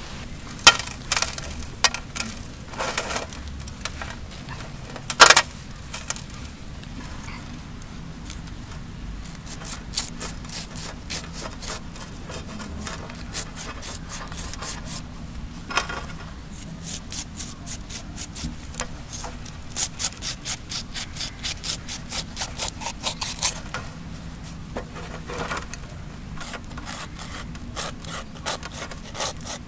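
Knife scraping the scales off a murrel (snakehead) fish, in quick repeated strokes of a few a second. A few sharp knocks come in the first few seconds.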